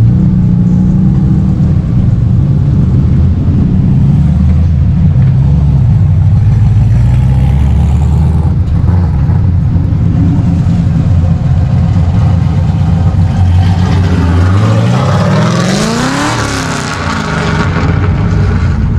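Car engines running loud and low, changing pitch in steps. About fifteen seconds in, one car revs and accelerates, its pitch rising sharply into a loud roar.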